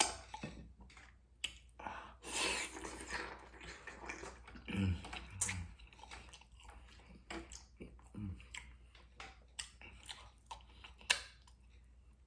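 Close-up mouth sounds of someone eating cocoyam fufu with achu soup: wet chewing and smacking, a run of short sharp clicks, and a longer stretch of wet noise about two seconds in.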